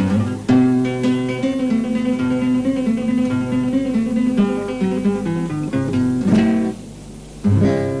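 Instrumental music led by strummed and plucked string instruments, playing a song's introduction. It thins out briefly about seven seconds in, then comes back with a strong chord.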